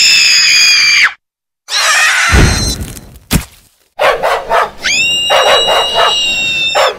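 Animated-film soundtrack put through the 'G Major 4' effect, which layers pitch-shifted copies of the audio into held, chord-like shrieks that switch on and off sharply. One held shriek for the first second, then a low thud and falling cries, then dog barking and yelps under a long held shriek from about five seconds until near the end.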